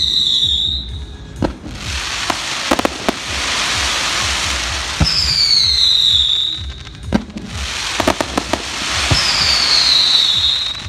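Daytime fireworks going off: sharp bangs, two long spells of dense crackling, and three whistles that each fall slightly in pitch.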